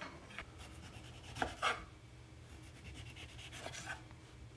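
Kitchen knife cutting the peel off an orange on a wooden cutting board: faint slicing and scraping, with two short louder sounds about a second and a half in.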